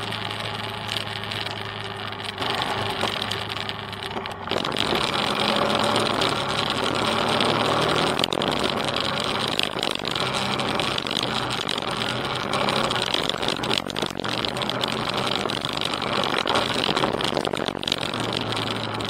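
Motorcycle engine running steadily while riding, under wind rush and tyre noise on a gravel track. It gets louder about four and a half seconds in.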